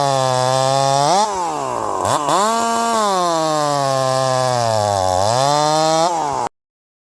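Husqvarna 346XP two-stroke chainsaw engine, rebuilt with a pop-up piston, running with its pitch falling and rising as the throttle is worked, with a sharp dip and recovery about two seconds in. The sound cuts off suddenly near the end.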